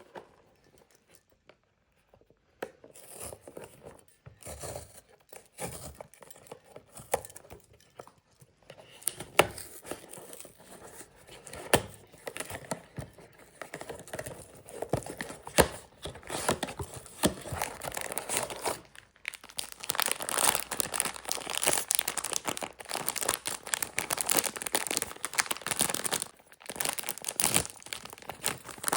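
Packaging being unwrapped by hand: wrapping crinkling and tearing, with sharp clicks and handling noises. It starts a couple of seconds in and gets busier toward the end.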